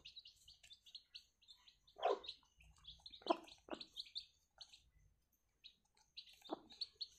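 Young chicks peeping in quick, steady high chirps, with a few louder, lower short sounds in between.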